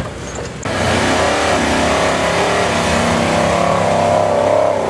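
Off-road trial vehicle's engine revving hard under load, its pitch rising and falling, louder from about half a second in.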